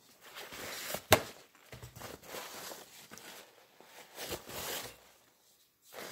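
Handling noise from gloved hands crumpling and rustling a paper towel over a metal ring rail, with one sharp click about a second in.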